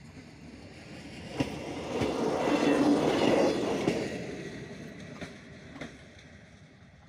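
A vehicle passing by out of view, swelling to its loudest about three seconds in and fading away, with a few sharp clicks and knocks along the way.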